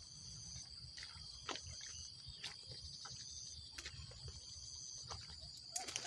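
Insects chirring in a steady high tone, with a second, pulsing trill starting and stopping above it. Scattered small clicks and snaps sound over a low rumble, and there is a louder knock near the end.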